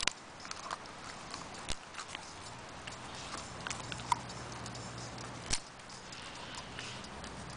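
Staffordshire terrier mouthing and tugging a wooden stick held by a person's hand: scattered clicks and knocks of teeth and wood, with a few sharper cracks.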